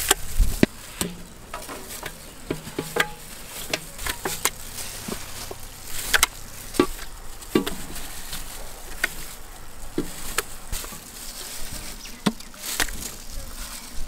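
Gloved hands mixing raw chicken leg pieces into thick, wet masala paste in a steel pot: irregular squelches and clicks of the paste and plastic gloves, with a steady high hiss behind.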